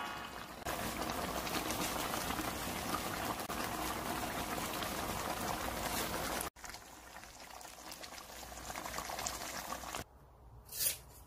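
Thick red chili braising sauce of kodari jorim (braised semi-dried pollock) bubbling and crackling as it simmers in the pan. It drops quieter about six and a half seconds in, and a brief swish comes near the end.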